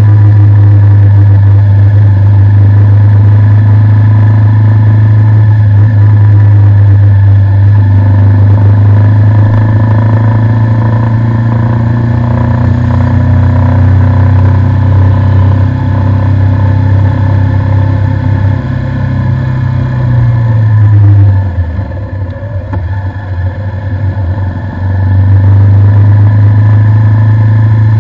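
Bajaj Avenger motorcycle's single-cylinder four-stroke engine running steadily under way. About 21 seconds in the engine note drops and quietens as the throttle is eased off, then picks up again some four seconds later.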